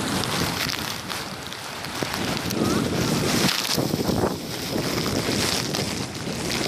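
Wind buffeting the microphone, coming in gusts, with water sloshing as someone wades through shallow sea water.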